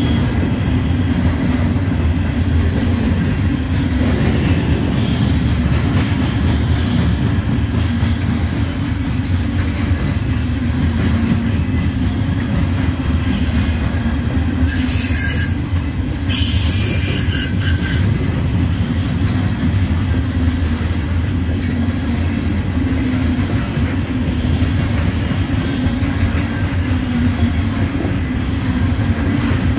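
Loaded coal hopper cars of a CSX freight train rolling past: a steady heavy rumble of steel wheels on rail. A high-pitched wheel squeal cuts in twice, in short bursts, a little past the middle.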